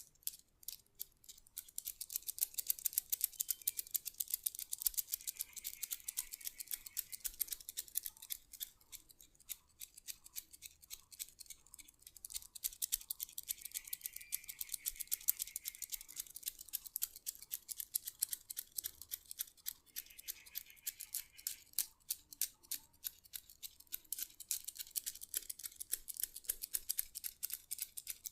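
Handheld massage tool worked over the skin: a fast, unbroken run of scratchy clicks, several a second.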